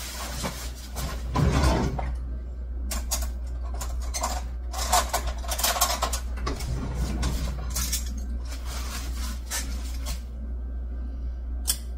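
Handwashing at a kitchen sink: irregular splashes of running water and light clinks of dishes, with a steady low hum underneath, quieter for the last second or two.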